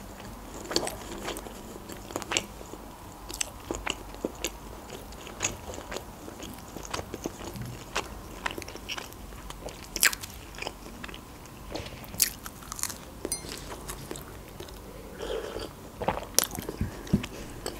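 A person chewing Adjarian khachapuri (cheese-filled bread), mouth sounds as irregular small clicks and smacks. Near the end comes a sip from a mug of tea.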